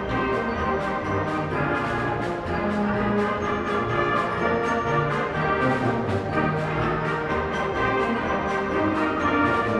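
Middle school symphonic band of woodwinds and brass playing live in a concert hall, moving through held chords at a steady, fairly loud level, with the brass prominent.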